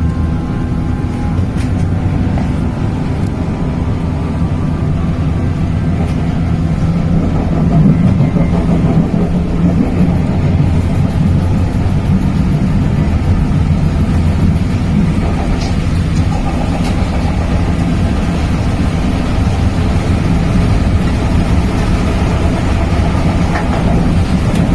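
Steady low rumble of a moving vehicle heard from inside it, growing a little louder about eight seconds in.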